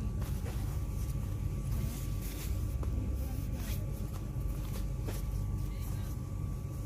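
Steady low rumble of indoor shop background noise with a faint steady hum, broken by a few soft rustles and clicks as cloth tote bags are handled.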